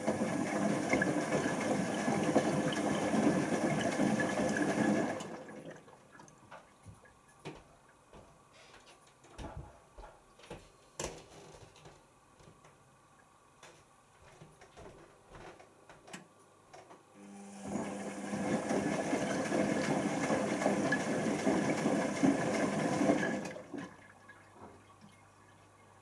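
Zanussi ZWC1300 compact washing machine taking in water through its inlet during the final rinse: two steady rushes of water, each about five to six seconds long, that start and stop abruptly. Between them come faint knocks and clicks from the drum.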